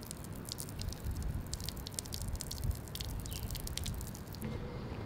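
A man urinating against a wall, the stream spattering in a dense run of small quick splashes that stops about four and a half seconds in.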